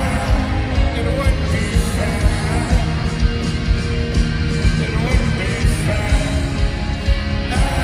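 Rock band playing live through a PA, heard from within the crowd: drums keeping a steady beat under bass and electric guitars in an instrumental passage.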